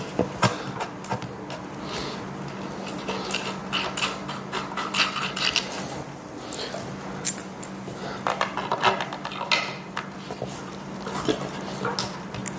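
Irregular clinks, taps and knocks of table hardware and frame parts being handled while bolts are backed off and the screw holes lined up, over a steady low hum.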